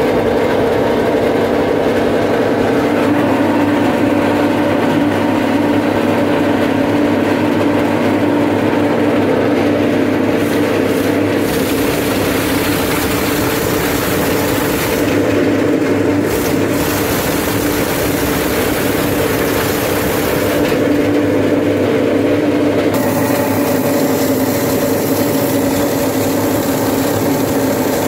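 Plastic shredder running steadily and loudly with a constant machine hum, grinding up plastic bottles and containers.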